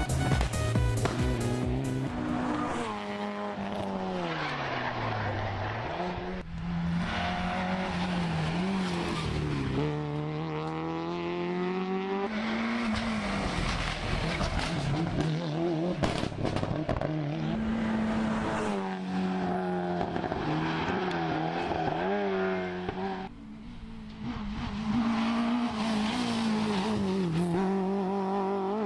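Rally car engines revving hard as one car after another passes on a tarmac stage. The pitch drops repeatedly as they brake and downshift into bends and climbs again as they accelerate out.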